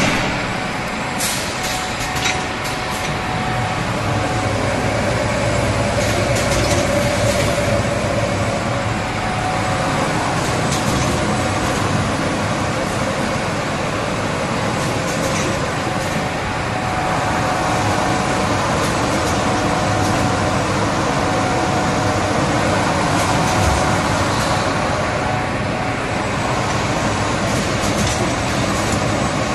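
Automatic UV screen printing machine for glass jars running: a steady mechanical din with a faint steady whine and occasional sharp clicks from its moving parts.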